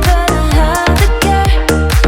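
Upbeat dance music with a steady kick-drum beat and a melody that may include singing.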